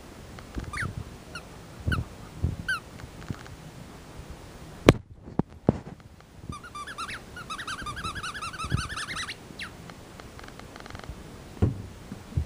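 Australian shepherd puppy whining: four short high falling whines, then a rapid, insistent run of short whines lasting about three seconds, as when a dog waits eagerly for its ball. A sharp knock sounds about five seconds in, followed by two lighter ones.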